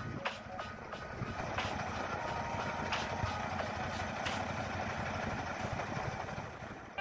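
Diesel semi-truck engine running at idle: a steady low rumble with a few light clicks over it.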